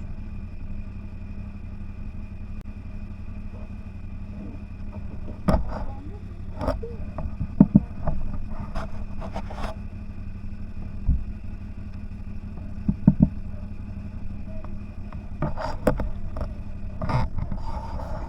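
CFMOTO 1000 off-road vehicle's V-twin engine running at a steady pitch, with a string of sharp knocks and clatters scattered through the middle and latter part.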